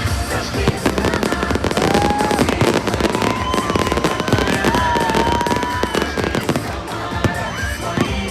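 Fireworks display: a dense run of bangs and crackling bursts, with music playing underneath. A few gliding whistles rise and fall in the middle.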